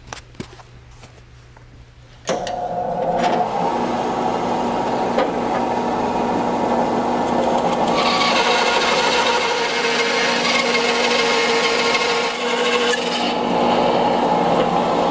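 Rikon bandsaw switched on about two seconds in, its motor and blade then running with a steady hum. From about eight seconds in, the Infinity Rip blade resaws a thin veneer off a cherry board, adding a loud, rough sawing noise that carries on through the cut.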